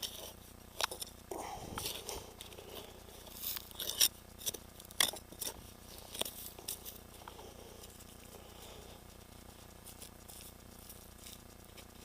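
A run of sharp clicks and scrapes from digging and handling soil to recover a metal detector target, loudest about four and five seconds in, then thinning out.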